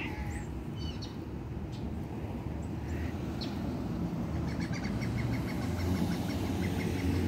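A low engine and road rumble from a car on the road, swelling louder in the second half. Over it come a few short, high bird chirps, and a quick run of repeated chirps from about halfway through to near the end.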